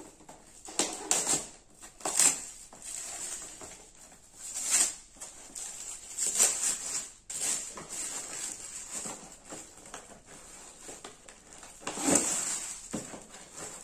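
Cardboard box being opened by hand: paper wrapping torn and crinkled and cardboard flaps rubbed and pulled, in irregular rustling bursts, the loudest about two, five, six and a half and twelve seconds in.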